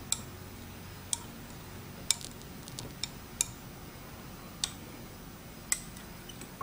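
A small metal spoon stirring in glass tumblers of liquid and clinking against the glass: about eight sharp, irregularly spaced clinks.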